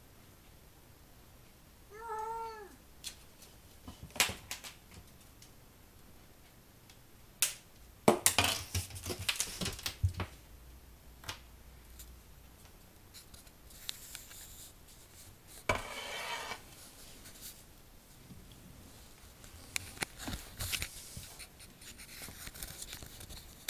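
A kitten meows once, briefly, about two seconds in. Around it come scattered sharp taps and knocks and a few short rustling scuffles from its play with a wand toy on a hard floor, the loudest cluster a little past the middle.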